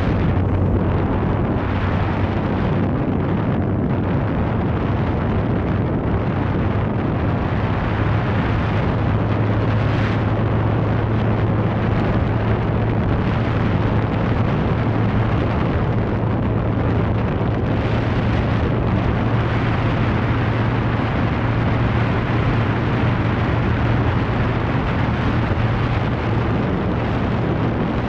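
Motorcycle riding at cruising speed: a steady low engine hum under heavy wind rush on the microphone. The engine note rises slightly about eight seconds in.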